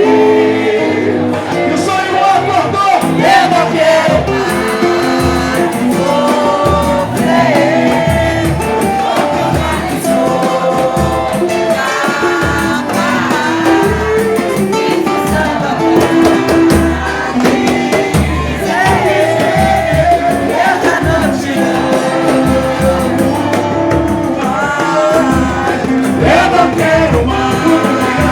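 Live samba band playing with a lead vocal singing over it.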